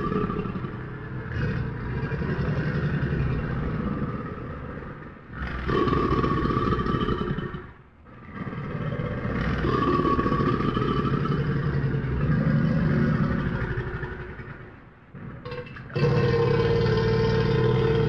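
Crocodile growling: four long, rough, low rumbling calls with short breaks between them.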